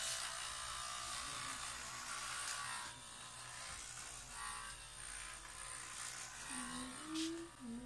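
Corded electric hair clippers buzzing steadily as they are run through a boy's hair.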